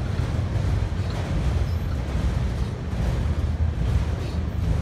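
Freight train of autorack cars rolling past at close range: a steady low rumble of steel wheels on the rails.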